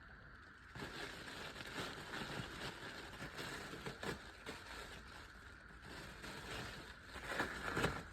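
Rustling handling noise with scattered light knocks, starting about a second in and busiest near the end.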